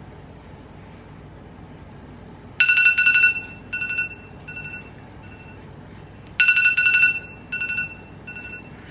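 iPhone timer alarm ringing: a fast run of high beeps that thins into slower, spaced beeps, sounding twice about four seconds apart. It signals that the cookies' baking time is up.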